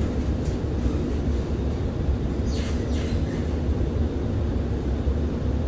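An SMRT R151 metro train running, heard from on board: a steady low rumble of wheels and motors, with a brief hissing scrape about two and a half seconds in.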